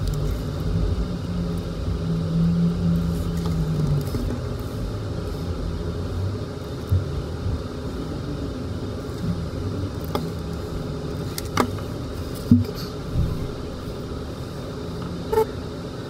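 Steady low rumble, with a few small sharp clicks and taps from a plastic toy and glue applicator being handled, the sharpest about three-quarters of the way in.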